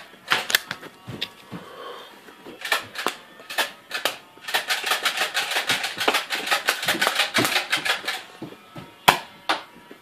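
Nerf N-Strike Elite Stockade dart blaster being pump-primed and fired repeatedly, making sharp plastic clacks. The clacks are scattered at first, then come in a fast run for about four seconds from about halfway in.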